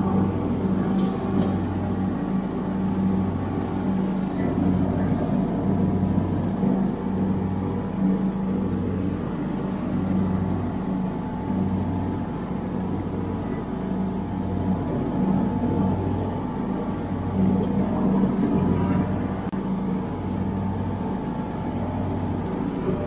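John Deere LX172 riding mower's 14 hp OHV engine running steadily under load while mowing, a low hum that swells and fades in a slow beat a little under once a second.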